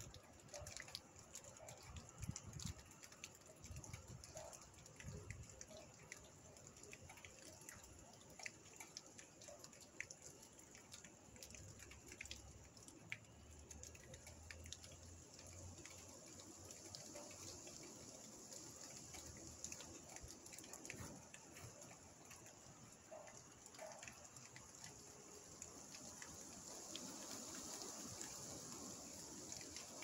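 Faint rain: scattered drops ticking and dripping over a soft hiss of rainfall, which grows a little louder near the end.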